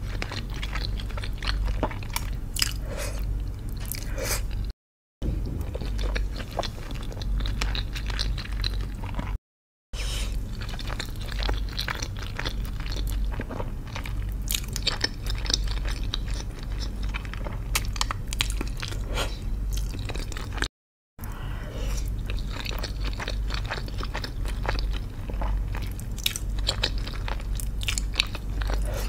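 Close-miked chewing of soft pasta, lasagna and creamy fettuccine: wet, irregular mouth clicks and squelches with a steady low hum underneath. The sound cuts out completely for a split second three times.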